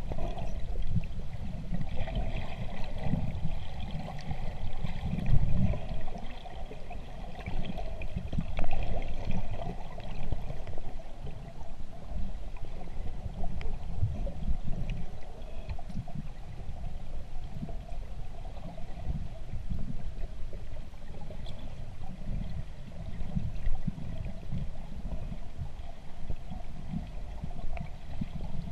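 Underwater ambience heard through a submerged camera housing: an uneven, muffled low rumble and gurgle of water moving around the housing as a spearfisher swims.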